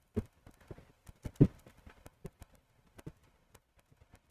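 A few scattered, soft clicks and taps at uneven intervals, the loudest about a second and a half in, over a quiet room.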